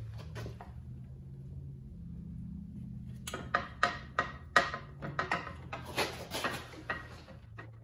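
A run of sharp clinks and knocks starting about three seconds in, as the metal lower unit of a 1960 Elgin outboard is handled and bumped against the motor's housing, over a low steady hum.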